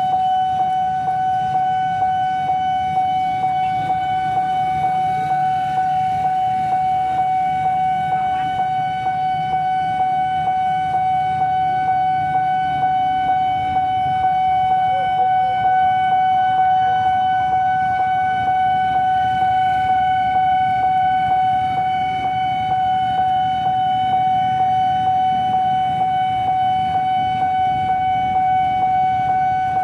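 Railroad level-crossing warning alarm sounding one steady, unbroken electronic tone with the barrier lowered, signalling an approaching train. A low rumble runs underneath.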